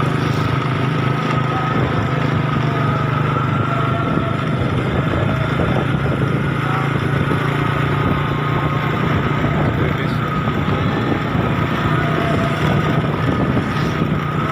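A vehicle engine running steadily while on the move, with a strong low hum and a faint steady tone above it.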